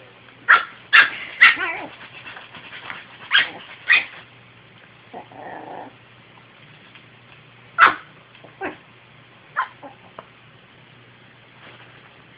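Small dog barking at a brush in about nine short, sharp, high yips, in uneven bunches with pauses between: alarmed barking at an object it is scared of.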